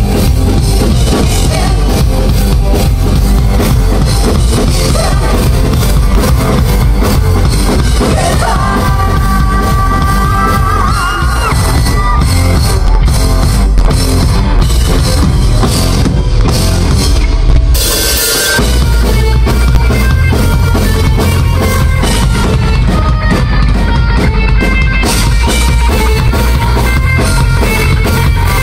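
Rock band playing loud and live: electric guitars, bass and drum kit with a singer's voice. About eighteen seconds in there is a crash and the low end drops out briefly before the band comes back in.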